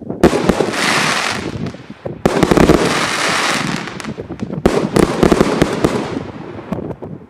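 A 200-shot, 1.2-inch (30 mm) assorted fireworks cake firing. Three loud shell bursts come about two seconds apart, each followed by a second or so of dense crackling, with smaller pops in between.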